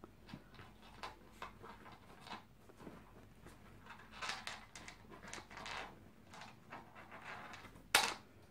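Chihuahuas shifting about in a soft fabric pet carrier, a run of faint rustles and small scratching ticks as one climbs in, then a single sharp knock near the end.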